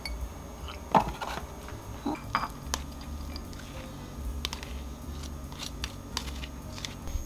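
Ceramic dishes clinking and knocking on a kitchen counter while dog food is tipped from one bowl into a dog's ceramic food bowl, the loudest knock about a second in, followed by a few lighter clicks and taps.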